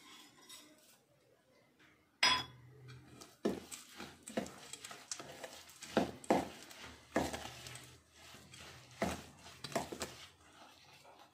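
Steel spoon clinking and scraping against a stainless steel mixing bowl while stirring a thick besan (gram flour) mixture with melon seeds. After a fairly quiet start there is a sharp clink about two seconds in, then irregular knocks and scrapes.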